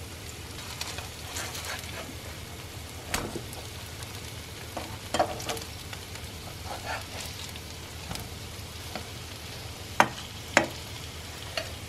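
Syrniki (cottage cheese pancakes) sizzling steadily in hot oil in a frying pan as they are turned, with a few sharp knocks of a utensil against the pan, the two loudest about ten seconds in.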